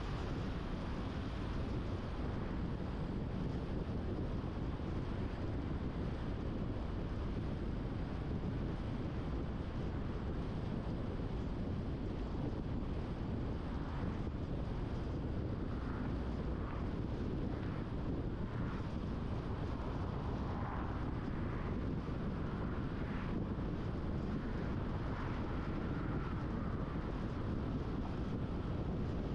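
Steady road noise of a car driving at speed: a low tyre rumble with wind on the microphone. Faint tones rise and fall now and then in the second half.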